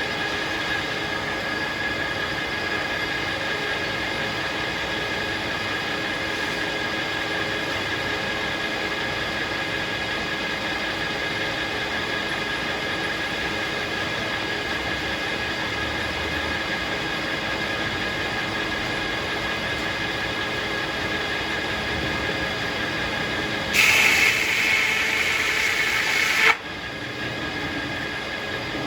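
Circular sawmill running steadily, a hum with several fixed whining tones. About 24 seconds in it turns louder and harsher for a few seconds, then drops back.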